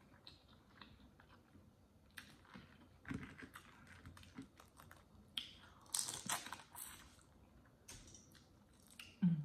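Boiled crawfish being peeled by hand: shells cracking and crackling, with long fingernails clicking against them in scattered clicks, thickest in a burst about six seconds in.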